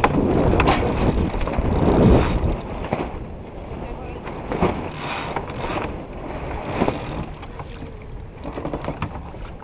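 Water rushing along a sailboat's hull with wind buffeting the microphone, loudest over the first two seconds and then easing. Scattered sharp clicks sound through it, a few single ones and a quick run near the end.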